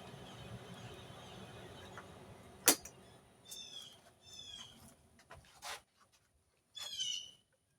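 A steady rushing noise that stops with a sharp click a little under three seconds in, followed by three short runs of high chirping animal calls, each a quick series of falling notes.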